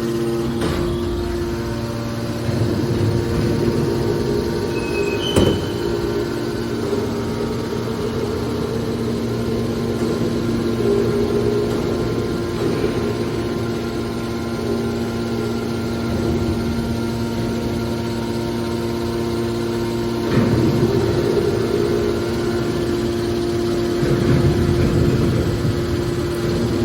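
Scrap metal baler for steel wire running, its hydraulic power unit giving a steady hum, with louder rushes of machine noise a few times and one sharp metallic knock about five seconds in.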